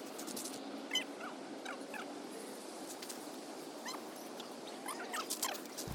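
Scattered bird calls: a handful of short, falling chirps over a steady background hiss.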